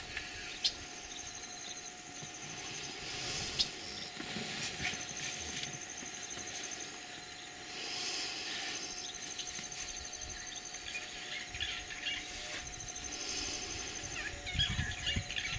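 Quiet outdoor ambience: repeated high, rapid trills, each lasting a second or two, over a faint steady hum, with a few sharp clicks.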